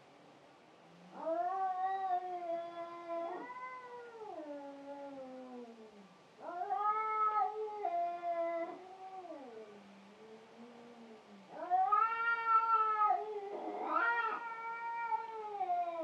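Two cats fighting, caterwauling in three long drawn-out yowls that waver and drop in pitch at their ends, with short pauses between. A rougher, harsher patch comes in the middle of the last yowl.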